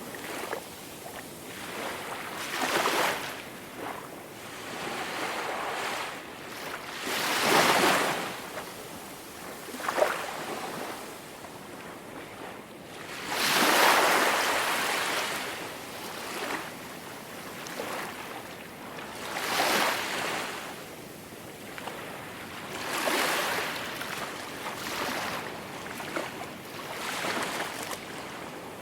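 Ocean waves breaking on a shore, a steady wash of surf that swells into a louder crash every few seconds, with a short sharp splash about ten seconds in.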